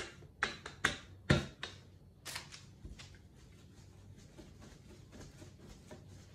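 Cling film and baking paper crackling and rustling under a wooden rolling pin and hands as tart dough is rolled out between the sheets. About five sharp crackles come in the first two and a half seconds, then fainter rustling as the film is smoothed flat.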